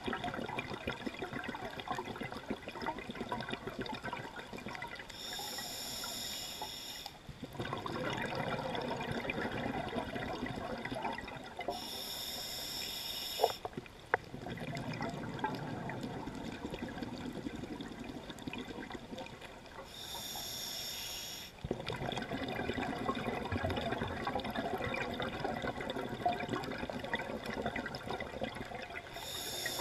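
Scuba diver breathing through a regulator underwater. A long bubbling, gurgling exhale alternates with a short hissing inhale, one breath roughly every seven to eight seconds. There is a single sharp click about thirteen seconds in.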